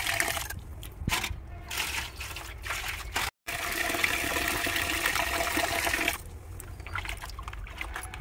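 Water pouring from a tap into a plastic bucket of water as cut fish pieces are swished and washed by hand. The pouring drops away about six seconds in, leaving quieter splashing of hands in the water.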